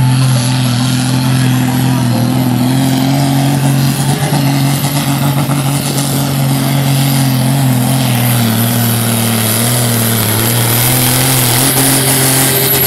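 Case IH Super Stock pulling tractor's turbocharged diesel engine running flat out under heavy load as it drags the weight-transfer sled. The deep steady engine note sags a little about two-thirds of the way through, with a thin high whistle above it.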